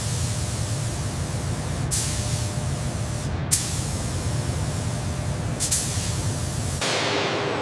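Compressed-air gravity-feed paint spray gun spraying with a steady hiss over a low rumble, breaking off and restarting sharply a few times. Near the end the rumble drops away and a thinner hiss remains.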